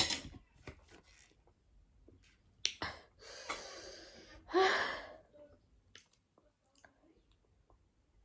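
A couple of small clicks, then a long breathy exhale and a short voiced sigh from a person, with faint room quiet around them.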